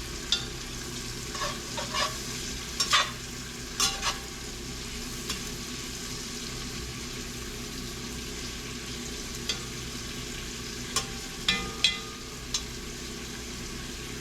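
Chopped leeks sizzling as they soften in a soup pot, with a spoon stirring and clinking against the pot in short bursts, mostly in the first few seconds and again near the end.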